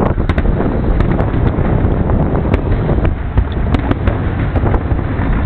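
Aerial fireworks bursting: a steady loud rumble with many sharp crackles and pops, with wind buffeting the microphone.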